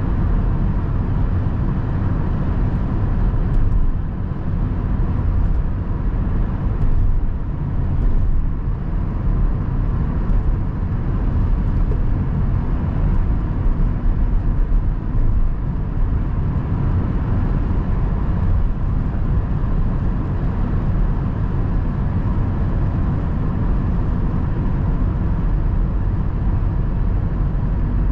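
A car being driven: a steady mix of engine and tyre noise, with a faint steady whine above it.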